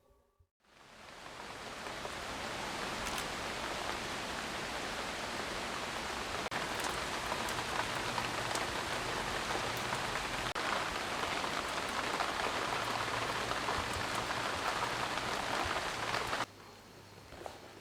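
Steady rain falling, a dense even patter with faint scattered drop ticks. It fades in over the first couple of seconds and cuts off abruptly near the end.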